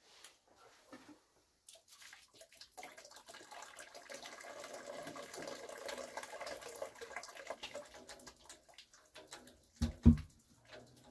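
Water running out of the hot-water heating pipework, a hiss that builds over a few seconds, holds, then fades. Two heavy knocks follow about ten seconds in.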